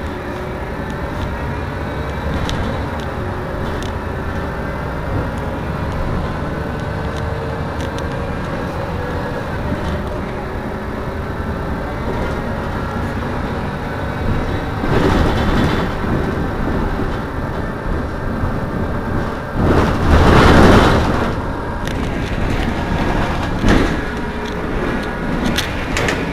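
Heuliez GX 327 city bus idling steadily. Several bursts of hiss come over the idle in the second half: one about fifteen seconds in, the loudest and longest about twenty seconds in, and two short ones near the end.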